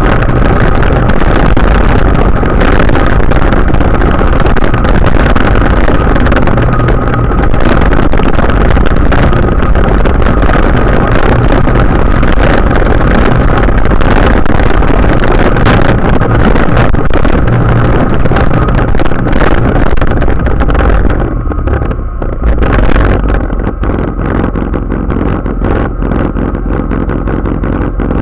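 Tractor engine running steadily under a loud rushing of snow pushed along by the side-wing plow. About 21 seconds in the rushing drops away and the engine runs on alone.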